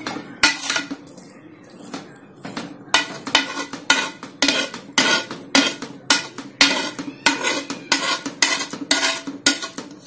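Slotted steel spatula scraping and turning nearly dry biryani rice in a metal pot, clinking against the pot in quick rhythmic strokes with a short ringing after each. The strokes are slower at first and settle to about three a second from about three seconds in.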